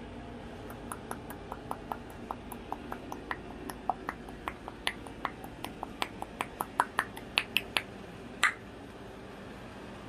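A quick, irregular run of small sharp clicks, about three a second, growing louder toward the end, with the loudest click about eight and a half seconds in.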